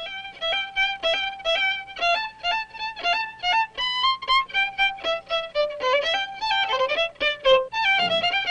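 Fiddle playing a fast dance tune in quick short notes, with lower notes joining in near the end.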